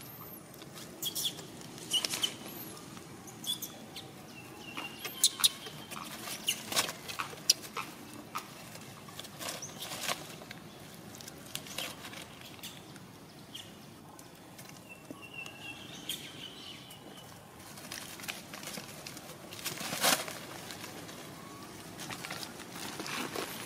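Leaves and branches rustling, crackling and snapping as long-tailed macaques climb through a tree canopy, in many short irregular clicks, the loudest about twenty seconds in. Faint short high chirps come through now and then.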